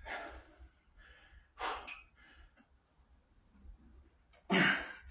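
A man breathing out hard with the effort of lifting a barbell overhead with one arm: a short breath out under two seconds in, then a louder, sharper one near the end.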